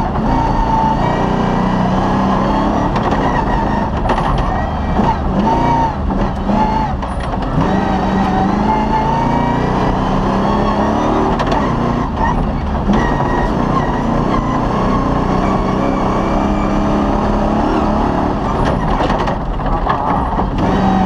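Off-road rally car's engine heard from inside the cabin, its revs climbing and dropping as it is driven hard along a dirt track, with occasional knocks from the car.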